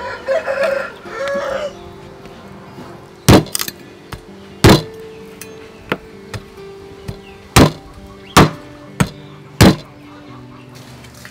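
A meat cleaver chops through pork ribs on a wooden chopping block, with about seven sharp, irregularly spaced chops from about three seconds in. In the first second or so a chicken calls a few times, and soft background music runs underneath.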